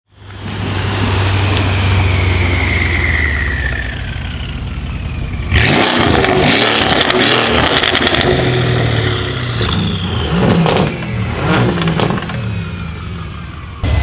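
Mercedes S63 AMG W221 twin-turbo V8 through a custom exhaust. It runs with a deep, steady drone and a faint falling turbo whistle, then about five seconds in suddenly revs loud. Sharp exhaust crackles and pops follow over the next several seconds.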